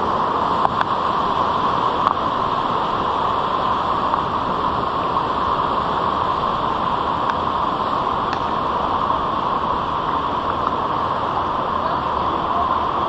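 Steady rushing of a stream in a rocky gorge, with a few faint clicks of stones underfoot.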